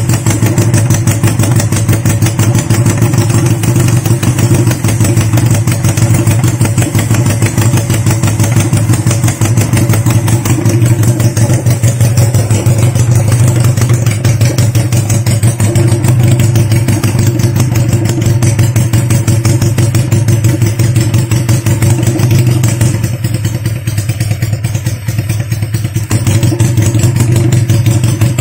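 Honda CB175's parallel-twin four-stroke engine running steadily while being warmed up, with a light mechanical clatter over the exhaust beat; it eases slightly about three-quarters of the way through.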